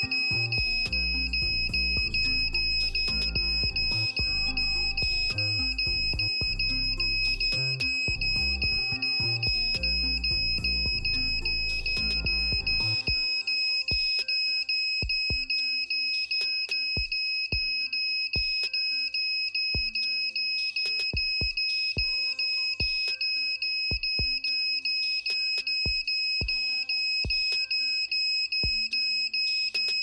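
Piezo buzzer of a homemade 555-timer smoke and gas detector alarm sounding one steady high-pitched tone: the alarm is triggered. Background music with a beat plays along, its heavy bass dropping out about halfway through.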